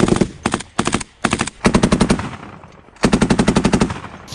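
Heavy machine gun, a .50-calibre class belt-fed gun, firing a string of short rapid bursts. After a pause of about a second, one more burst comes about three seconds in.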